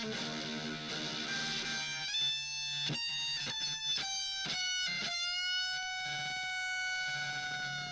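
Electric guitar played through the Make Sounds Loudly Thurston, a RAT-style distortion with octave fuzz. Distorted chords for about two seconds, then picked single notes, ending on a long sustained note that wavers slightly in pitch.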